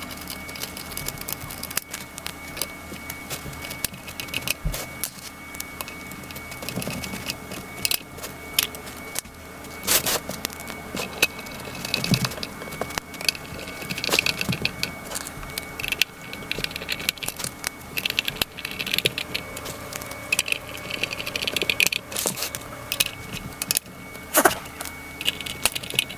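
Plastic pieces of a car stereo dash adapter kit clicking, tapping and rattling as they are fitted together by hand, with scattered irregular clatters throughout.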